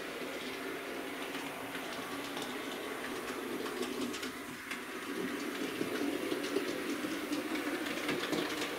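Hornby West Country/Battle of Britain class OO-gauge model steam locomotive running round a model railway loop: a steady electric motor hum with scattered light clicks from the wheels on the track.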